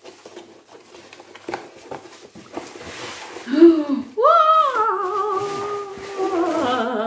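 Cardboard box and plastic bubble wrap crinkling and rustling as a long wrapped item is pulled out. About three and a half seconds in, a woman's voice takes over with long, wavering sung or hummed notes that rise and fall.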